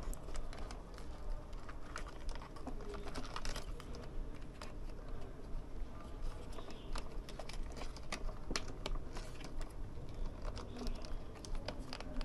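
Scattered sharp clicks and taps of small plastic parts and batteries being handled, as batteries are fitted into a toy remote-control car and its controller, over a low steady hum.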